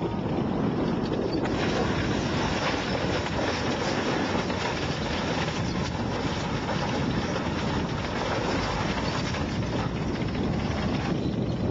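Sherman tank's engine and tracks running as it rolls over a Skoda car and crushes it flat, with wind noise on the microphone. The sound grows harsher and brighter about a second and a half in, then eases near the end.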